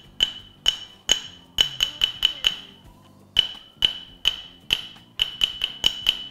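Toy xylophone with rainbow-coloured metal bars struck with a mallet: a string of quick ringing notes in an uneven rhythm, nearly all on the same high note, with a short pause about halfway through.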